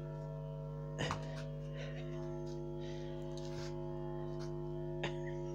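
Background music holding a steady drone of several unchanging tones, with two short knocks, about a second in and about five seconds in.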